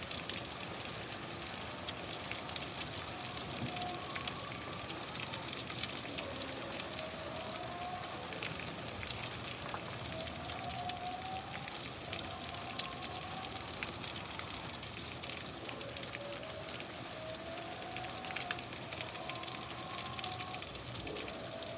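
Steady rain falling, a continuous hiss dotted with many small drop impacts. Faint, slow rising tones come and go in the background.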